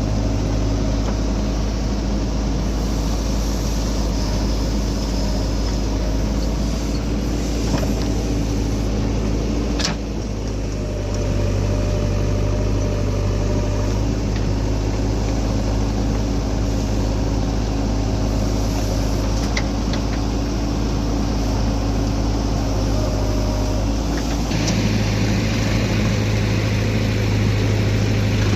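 Diesel engine of a JCB 3DX backhoe loader running steadily as it works, with one sharp knock about ten seconds in and the engine getting a little louder near the end.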